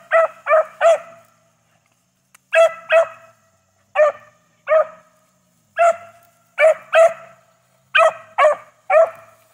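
Beagle puppy barking on a rabbit's scent track: about fifteen short barks, singly and in quick pairs, with short pauses between them.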